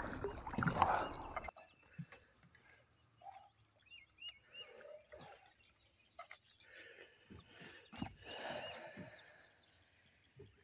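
A bass being netted at the side of a boat: a burst of splashing, then quieter water sounds and a few knocks from the landing net and gear, with faint bird chirps.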